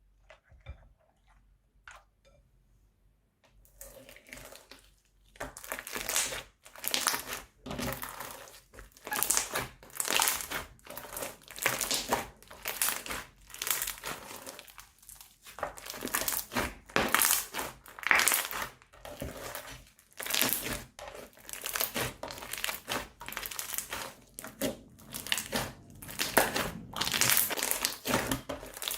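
Slime being squeezed by hand, with its plastic piping bag crinkling and crackling in repeated squeezes, about one or two a second, starting a few seconds in.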